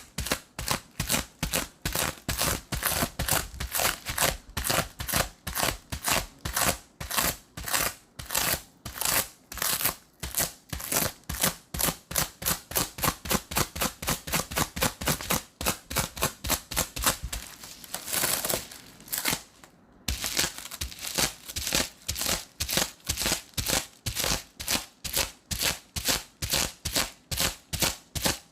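Sticky tape pressed onto glue residue and peeled off again and again, each pull a short sticky crackling rip, about three a second, lifting the leftover adhesive. The rhythm breaks briefly about two-thirds of the way through with a softer rustle.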